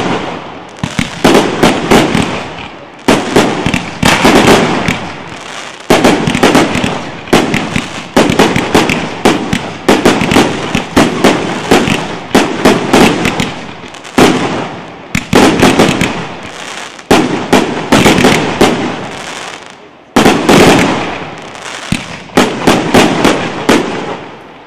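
Fireworks display going off in rapid barrages: clusters of loud bangs from shells launching and bursting about every one to two seconds, with crackling between.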